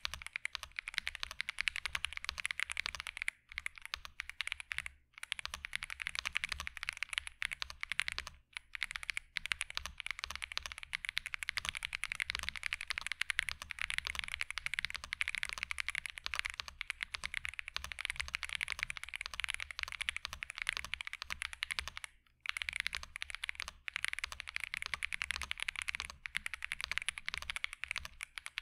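Fast typing on a Womier S-K71 aluminium 68% mechanical keyboard, stock out of the box, with factory-lubed Outemu White linear switches, plate-mounted stabilizers and cherry-profile double-shot keycaps. The keystrokes clatter densely and steadily, broken by a few brief pauses.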